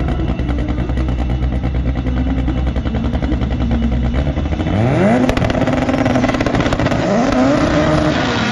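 Drag-race cars' engines running, then about four and a half seconds in one accelerates hard: its pitch sweeps steeply up and holds, then climbs again near the end, with a crackle from the exhaust while it pulls.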